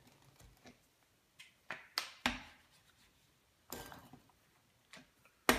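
Rolling pin clunking and rolling on a countertop while tortilla dough is rolled out: several sharp, scattered knocks, the loudest near the end, with quiet between.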